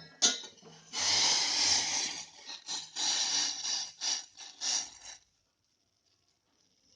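Boiled syrup being poured from the pan through a strainer: a sharp clink, then a steady pour for about a second and a half and several shorter pours, cutting off about five seconds in.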